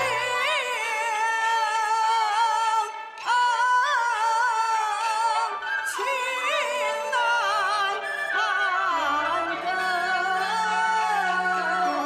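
Liuzi opera music: a high, ornamented melody with heavy vibrato over instrumental accompaniment. A sharp click sounds about six seconds in, and a lower accompaniment line joins in the latter half.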